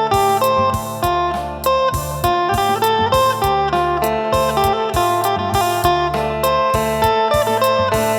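Phin, the Isan plucked lute, playing a quick melody over a held drone note, with a bass line and a steady beat behind it.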